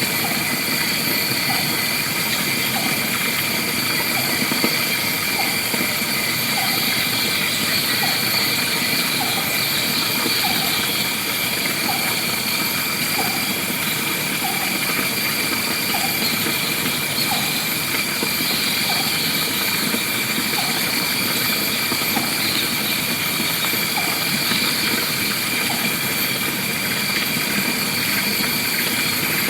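Forest ambience: a steady, high insect drone, with a short low call repeating about once every second and a half.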